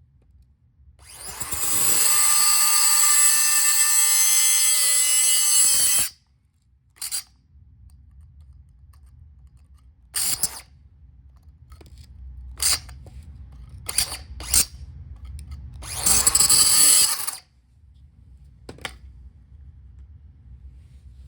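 Handheld power tool running in bursts with a steady high whine: one long run of about five seconds, several short blips, then a second run of about a second and a half.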